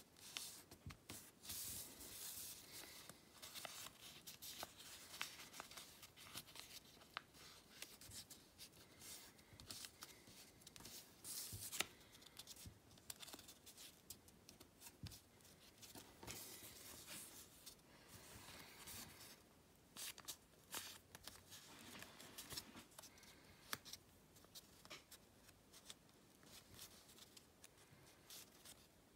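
Faint rustling and crinkling of a sheet of origami paper being folded and creased by hand: a stream of small, irregular scrapes and crackles, with one sharper crackle about twelve seconds in.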